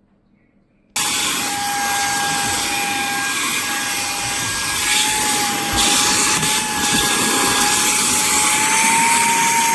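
Saker cordless handheld vacuum cleaner with a brushless motor, running and sucking air: a steady rush of air with a motor whine that wavers slightly in pitch and rises a little near the end. It starts suddenly about a second in, after near silence.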